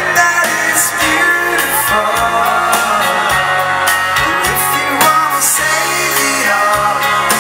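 Live dance band playing a foxtrot: electric guitar, bass, keyboard and drums with steady cymbal hits, amplified through the PA.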